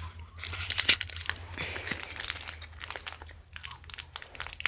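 Foil wrapper of a Pokémon card booster pack crinkling and tearing as it is opened by hand, a run of irregular crackles.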